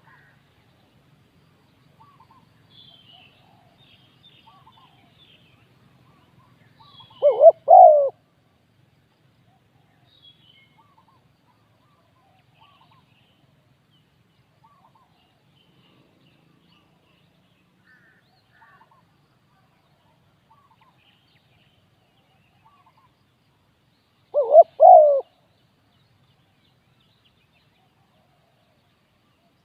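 Spotted dove cooing: two short coos, each a quick phrase of about three notes, some seventeen seconds apart. Faint chirps of small birds come and go in between.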